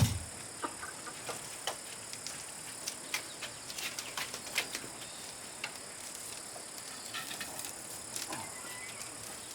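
Steady high-pitched insect chorus, with irregular sharp clicks and taps throughout and a louder knock right at the start.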